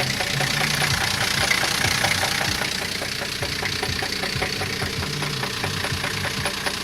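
Engine idling with a steady, regular knock from inside the engine, which the men fear means a bearing shell is close to spinning.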